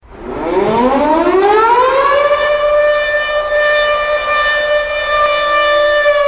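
Air-raid siren winding up in pitch over about two seconds, holding one steady loud note, then starting to wind down near the end.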